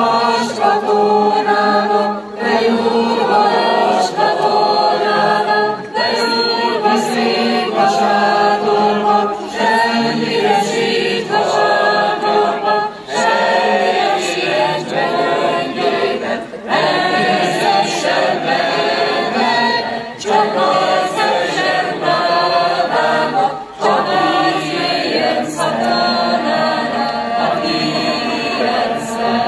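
A large mixed choir of men and women singing a cappella, in sustained phrases with short breaks every few seconds.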